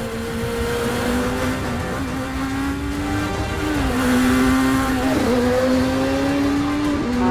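Motorcycle engine running hard at high revs, its pitch dipping a couple of times and then climbing again as it accelerates, over the rush of traffic.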